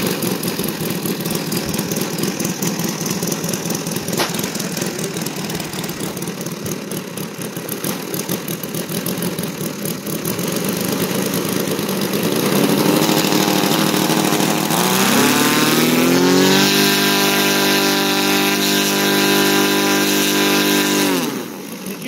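Saito FG-60R3 three-cylinder four-stroke radial engine on an RC Bearcat model running at low throttle, then revved up over a few seconds about halfway through, held steady at high revs, and throttled back down to idle near the end.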